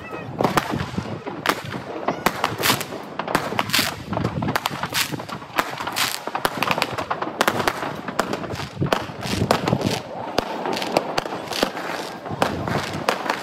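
Many fireworks going off at once: a continuous barrage of bangs and crackles, overlapping with no let-up, and a few louder bangs standing out.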